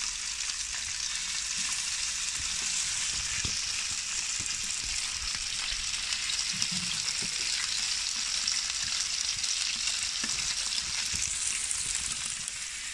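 Fish frying in hot oil in a large pan: a steady sizzle with scattered crackles and pops.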